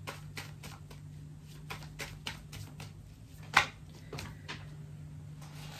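A deck of tarot cards being shuffled by hand: an irregular run of soft card slaps and clicks, with one louder snap about three and a half seconds in, over a low steady hum.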